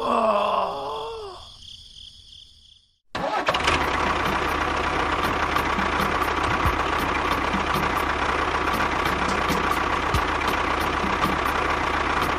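Brief warbling, gliding tones, then a short silence. About three seconds in, a small motor starts suddenly and runs steadily with a steady whine and a faint regular ticking.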